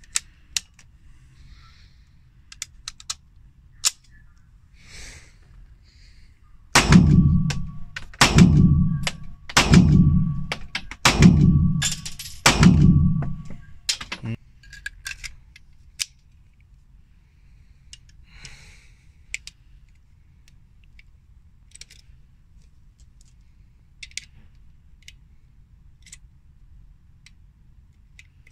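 Luger P08 pistol fired five times, a shot about every second and a half, each shot echoing briefly. Small metallic handling clicks come before and after the shots.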